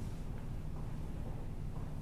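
Room tone during a pause in speech: a low steady hum with a faint hiss, and no distinct events.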